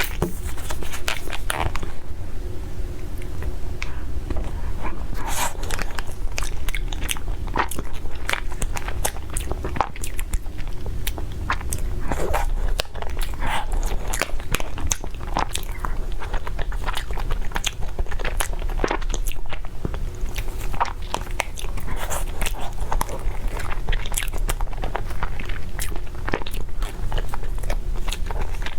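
A person eating crunchy food close to the microphone: a steady run of short, crisp crunches and chewing, one after another at an uneven pace.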